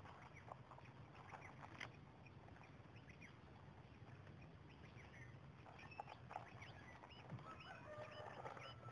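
Faint background birds: scattered short chirps and calls, growing busier in the last few seconds, over a low steady hum.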